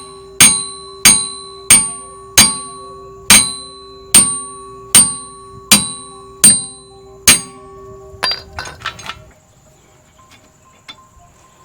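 Hammer blows on a steel wheel hub, knocking out old wheel studs: about ten ringing metallic strikes, roughly one a second, that stop about two-thirds of the way in, followed by a few light clinks.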